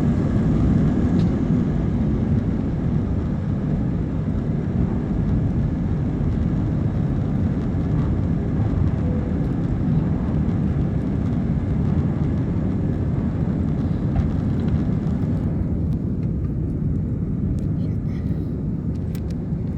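Airliner cabin noise heard from a passenger seat: the steady low drone of the engines and airflow. Some way past the middle, the higher hiss falls away, leaving a duller low rumble.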